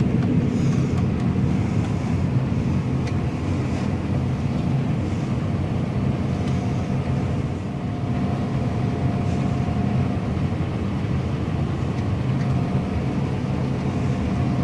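John Deere combine running steadily while harvesting wheat, heard from inside the cab: a steady low drone of engine and threshing machinery. A faint steady whine joins about halfway through.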